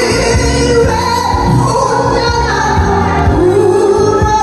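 A woman singing a Korean song live into a handheld microphone over a loud backing track with a steady beat.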